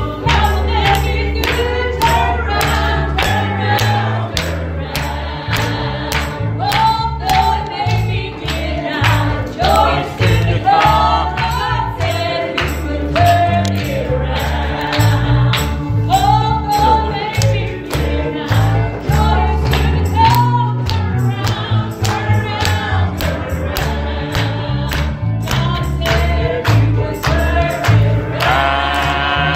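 Gospel song: voices singing over a strong bass line and a steady beat.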